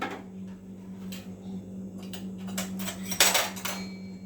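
A few knocks and clinks of kitchen utensils being handled, the loudest a short clatter about three seconds in, over a steady low hum.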